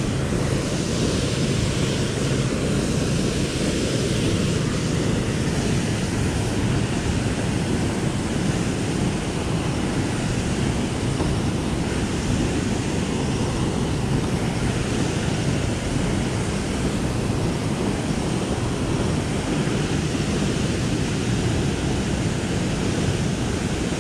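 Steady rush of flowing river water, an even noise that does not let up.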